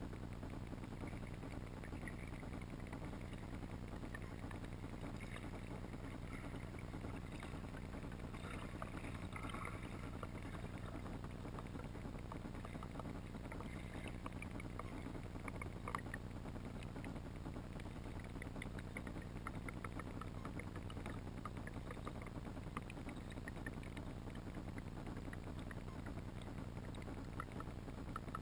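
Underwater ambience heard through a GoPro's sealed housing on a riverbed: a steady, muffled low hum with scattered faint ticks and one sharper click about sixteen seconds in.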